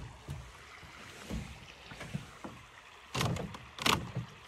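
Small jon boat moving on a creek: low water and hull noise with a few soft knocks, then a louder scraping rush with sharp knocks about three seconds in, as the boat runs aground.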